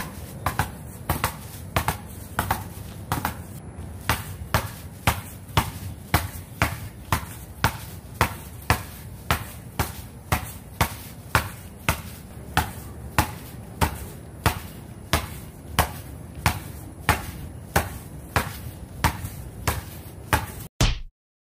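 A basketball wrapped in a plastic bag dribbled hard on concrete, a steady run of bounces at about two a second, cutting off suddenly near the end.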